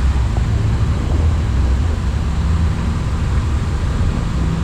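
Steady low rumble on the flight deck of an Airbus A340-300 taxiing after landing, its engines at idle. A steady low hum joins near the end.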